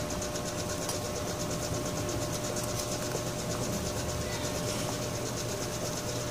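Steady mechanical background hum with a fast, even pulsing hiss, and no distinct handling knocks.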